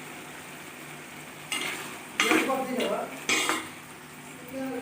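Chicken pieces being stirred in a hot pan, a spoon scraping against the metal in a few strokes about one and a half to three and a half seconds in, over a steady sizzle of frying oil.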